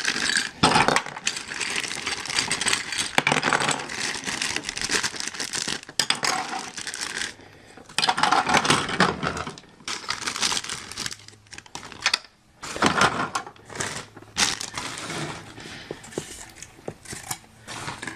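Plastic parts bags crinkling as they are opened and handled, in irregular bursts with short pauses, mixed with small hard plastic toy pieces clicking and clinking together.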